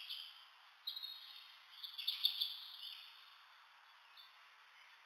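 Faint high-pitched animal chirps in two short clusters, about a second in and again around two seconds in, over a low steady hiss.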